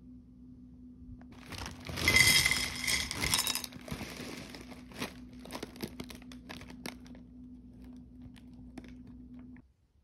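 Thin plastic pouch crinkling loudly for about two seconds as it is torn open, then scattered light clicks of dry cereal pieces landing on a ceramic plate. A steady low hum runs underneath and stops near the end.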